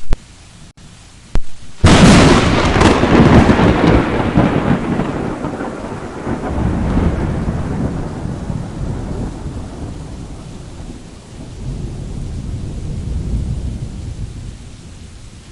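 Thunderstorm: a sudden loud thunderclap about two seconds in, followed by a long rolling rumble that fades, swells again twice, and dies away, with rain falling throughout.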